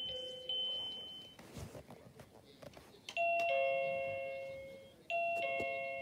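Byron plug-in wireless doorbell chime finishing a short stepped chiming melody. After a pause with a few faint clicks, it plays a two-note ding-dong falling in pitch, twice, each note ringing on and fading.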